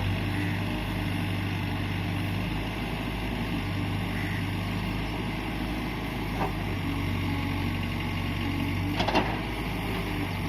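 Engine of a JCB backhoe loader running steadily at a constant speed, with two brief sharp knocks, about six and a half and about nine seconds in.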